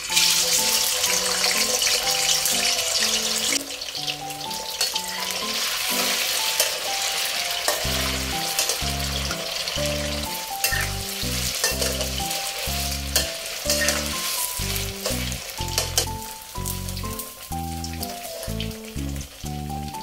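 Food sizzling in hot oil in a pan during a stir-fry, loudest in the first few seconds and then settling to a steady sizzle, with occasional clicks of stirring. A light background music track plays underneath.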